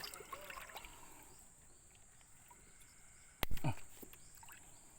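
A steady, high-pitched drone of insects, with a single sharp knock a little past the middle.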